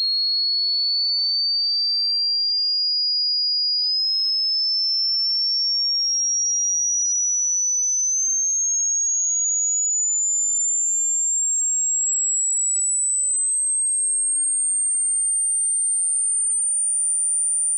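Pure sine test tone at a steady level, climbing slowly and evenly from a high whistle to a very high, thin one: a hearing-test frequency sweep.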